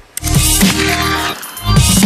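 Electronic music with a heavy bass line and beat. It drops out briefly at the start, then comes back with a rushing noise sweep over the bass.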